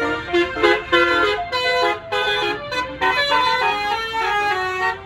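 Bus basuri telolet horn, a multi-trumpet musical air horn, playing a melody in short notes that step quickly from pitch to pitch.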